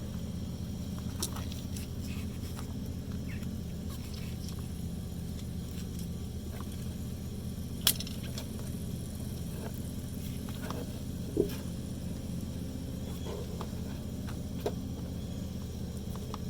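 A few isolated sharp clicks and light knocks from hand work on a truck's fuel pump assembly as a fuel line is taken off, over a steady low hum.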